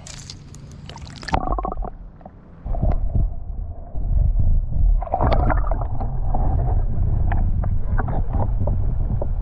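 Fishing boat moving on the water: a steady low rumble that sets in a few seconds in and grows louder, with scattered knocks.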